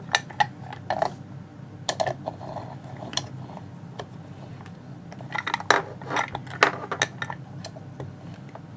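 Sharp metallic clicks and clinks, scattered and then a quick flurry near the end, as a hardened-steel padlock is handled and clamped into a vise.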